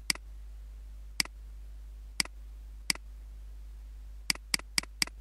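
Computer mouse buttons clicking, eight sharp clicks: four about a second apart, then four in quick succession near the end, over a steady low hum.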